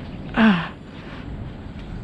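A man's short grunt, falling in pitch, about half a second in, made while straining to free a fishing lure snagged in weeds. A steady low background hiss and rumble runs underneath.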